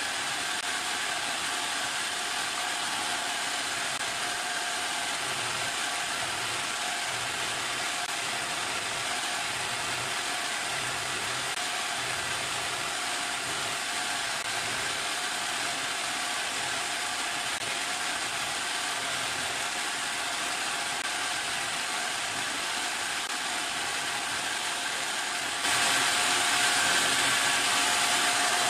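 Homemade electric coconut grater running: the motor-driven grating blade spins and rasps against a half coconut pressed onto it, a steady whirring with a grinding rasp. It gets louder near the end.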